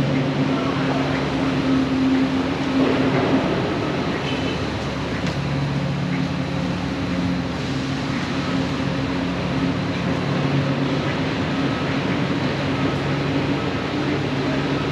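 A steady mechanical hum from running machinery, holding constant low tones over a broad noisy bed.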